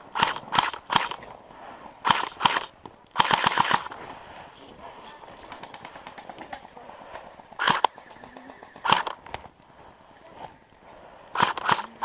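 Airsoft guns firing: several quick shots at the start, a rapid burst about three seconds in, then single shots spaced a second or so apart and a short cluster near the end.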